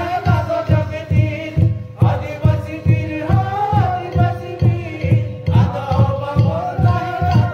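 A man singing a chant-like folk song, with a steady low drum beat at about three strokes a second and a held note underneath.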